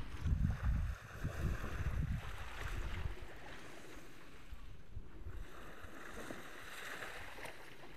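Wind buffeting the microphone, in gusts strongest over the first couple of seconds, over a steady wash of small sea waves on the shore.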